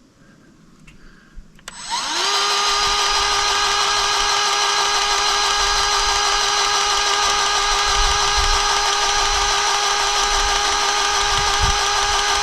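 Battery-powered grease gun motor starting about two seconds in, spinning up and then running steadily as it pumps grease into an excavator's grease fitting.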